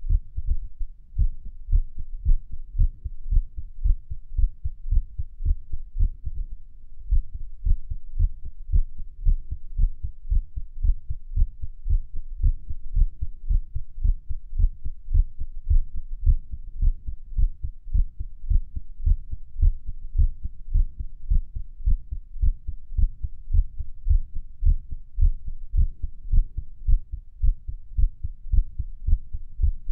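A human heartbeat recorded against the chest at Erb's point: a steady run of dull, low thumps in quick succession, which the owner describes as irregular.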